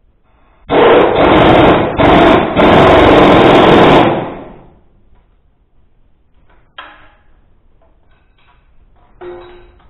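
Impact wrench hammering in three bursts over about three seconds, then two sharp metal clanks, the second one ringing.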